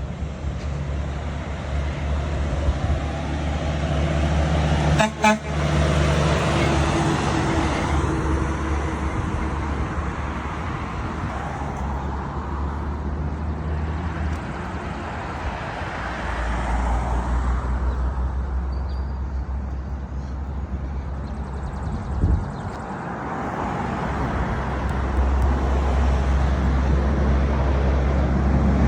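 Trucks and cars passing on a road, engines making a steady deep hum. A horn sounds briefly about five seconds in.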